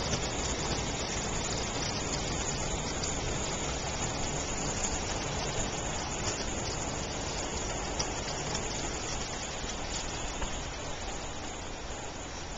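Heavy rain pouring steadily, a little quieter near the end.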